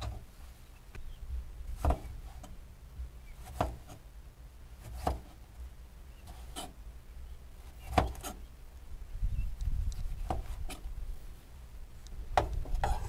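Chef's knife cutting lettuce and slicing tomatoes on a wooden cutting board: single knocks of the blade on the board every second or two. A low rumble builds in the last few seconds.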